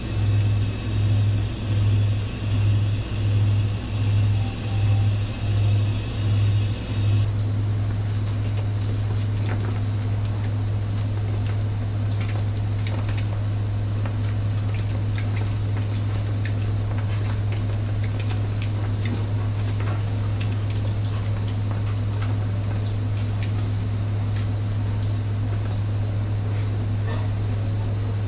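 A loud, steady low machine hum, pulsing a little faster than once a second for the first several seconds and then holding even. Over it are faint scattered crackles and ticks from eel fillets grilling on skewers over an electric grill.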